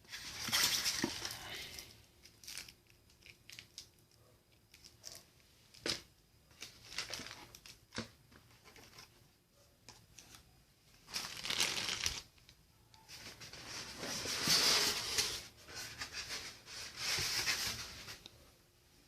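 Packaging being torn and crumpled in several noisy bursts, with scattered sharp clicks and knocks between them.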